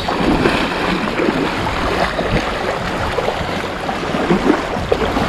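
Steady rushing wash of shallow surf at the shoreline, an even noise with no clear pitch.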